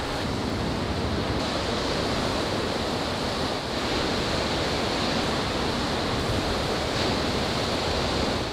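Butter sizzling as it melts in a hot cast-iron skillet on a gas camp stove: a steady hiss throughout.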